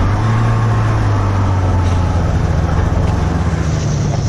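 Snowmobile engine running steadily under way, heard from on board the machine, with a strong low drone.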